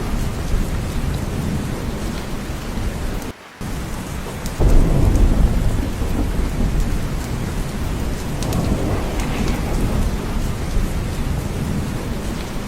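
Steady heavy rain with deep thunder rumbling underneath. The sound cuts out for a moment about three seconds in, and about a second later a louder low rumble of thunder swells and slowly eases.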